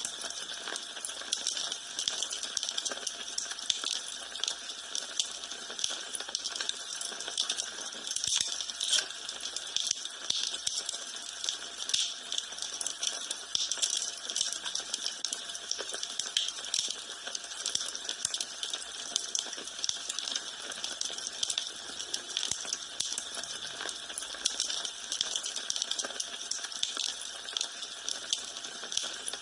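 Wood fire in a fireplace crackling steadily: a dense run of small sharp snaps and pops, with a few louder pops now and then.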